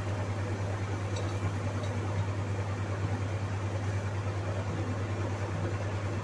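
Induction cooktop running, a steady low hum with a fan-like whirr, with two faint ticks between one and two seconds in.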